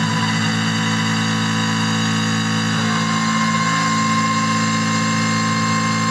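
Industrial noise music: a dense, steady droning wall of sound with a heavy low rumble and a thin held high tone that grows stronger about halfway through.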